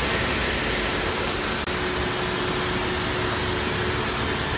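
Pressure-washer lance spraying a high-pressure water jet onto a car's body: a steady hiss of water, with a faint steady hum running under it from about two seconds in.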